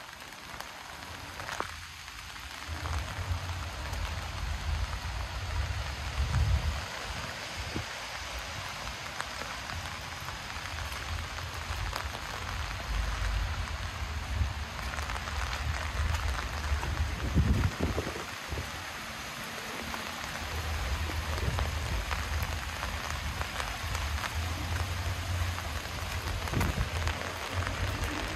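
Rain falling steadily as an even hiss with scattered sharp drop ticks, over a low rumble that comes and goes.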